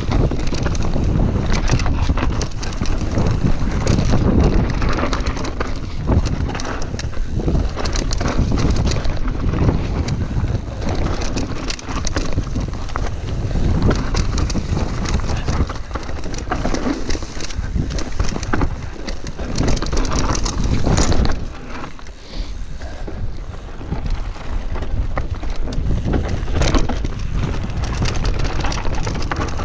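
Commencal Meta V4 mountain bike riding fast down a dirt forest singletrack: wind buffeting the microphone, tyres rolling over dirt and roots, and frequent clatters and knocks from the bike over the bumps, easing briefly about three-quarters of the way through.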